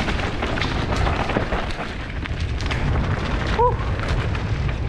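Mountain bike ridden fast down a dirt jump track: wind buffeting the microphone as a steady low rumble, with the bike's chain and frame rattling in many short clicks. A brief squeak about three and a half seconds in.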